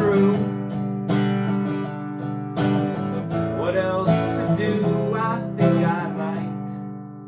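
Acoustic guitar strumming chords without singing, a fresh strum every second or so, as the song's closing chord rings out and fades.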